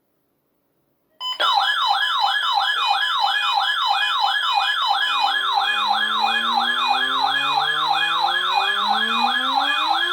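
Weather-radio warning alarm sounding for the weekly test: after a moment of silence, a loud electronic wail sweeping rapidly up and down, about three and a half times a second, over a steady high tone, starting about a second in. From about halfway through, lower tones glide slowly upward beneath it.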